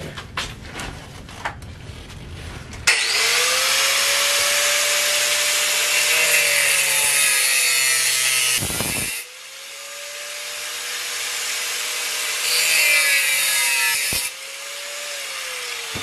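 Angle grinder with a cutoff disc slicing through the steel top plate of a microwave magnetron. After a few handling knocks, the motor starts about three seconds in and cuts with a loud hiss over its steady whine. The cutting breaks off around nine seconds, the motor whines on its own, then cuts again briefly, and the whine falls as it winds down near the end.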